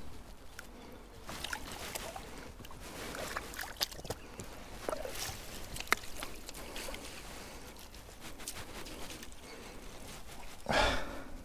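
Light water splashing and sloshing with scattered small clicks, and a louder burst of noise near the end.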